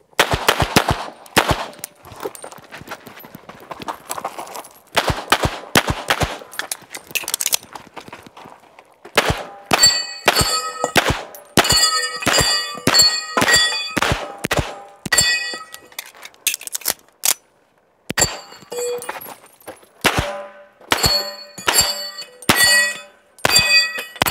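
Rapid pistol fire from a Colt 1911 during a timed stage run. For the first several seconds the shots hit paper only. From about nine seconds in, hits on steel plates ring out at set pitches, the plates of MGM propeller and whirligig spinner targets.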